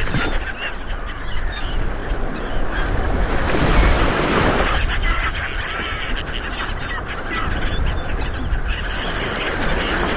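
Ocean waves rolling in and breaking on the shore as a continuous surging wash, with one wave cresting loudest about four seconds in. Faint bird calls are scattered over the surf.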